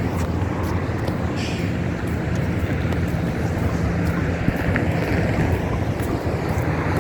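Steady low rumble of road traffic, mixed with wind on the microphone.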